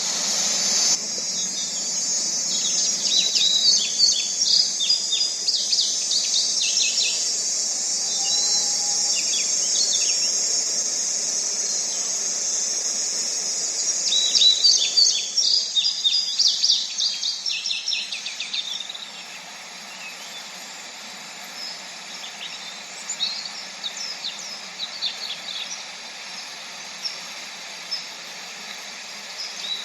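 Many small birds chirping in quick clusters over a steady high hiss. The hiss falls away about two-thirds of the way through, leaving quieter, sparser chirps until a fresh burst of chirping right at the end.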